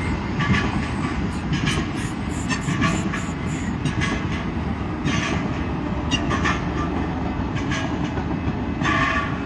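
Amtrak passenger train running on the tracks: a steady rumble with many short, high clicks and squeaks scattered through it.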